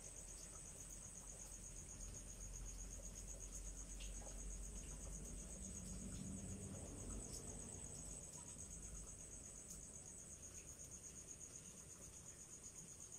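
Crickets trilling steadily in a faint, high, even chorus, with a low rumble underneath.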